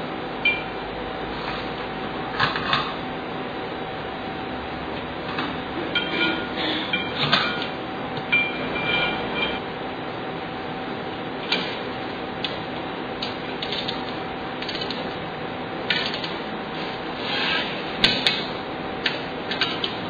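Metal sample pans and their rack clinking and scraping as they are set into a pressure aging vessel, in irregular knocks and rubs, a few ringing briefly, over a steady hum.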